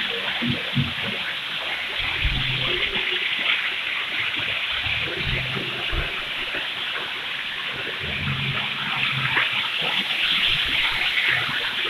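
Steady rush of running water from a jungle stream, a dense hiss flecked with small splashy clicks.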